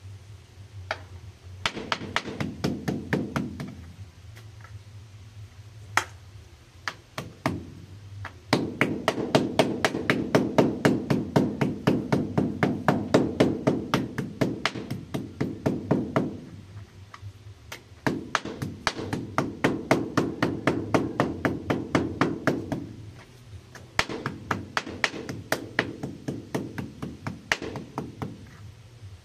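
Kitchen knife rapidly hacking a slice of raw pork on a plastic cutting board, about five quick strikes a second, in four runs with short pauses between them.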